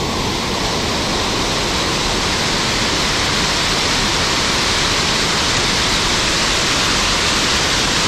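Swollen mountain stream rushing in spate, a loud, steady wash of water.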